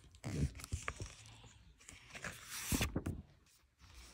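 Handling of a paper book: soft rustles and a few irregular thumps as pages are turned and the book is moved.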